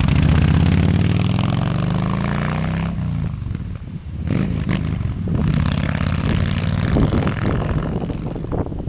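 Yamaha XVS 1300 V-twin motorcycle exhaust, its pitch sliding down over the first few seconds as the bike goes by. It drops away briefly about three to four seconds in, then the engine note comes back and runs on.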